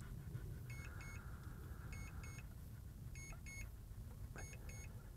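Drone remote controller beeping: pairs of short, high electronic beeps repeating a little over once a second, four pairs in all, over a faint low rumble.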